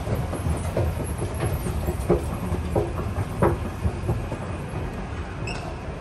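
Steady low rumble of a Docklands Light Railway station, with footsteps knocking about every two-thirds of a second that fade near the end.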